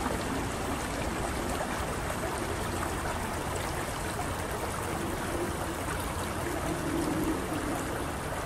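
Water from a spring running steadily in a shallow flow over gravel and stones, trickling and babbling.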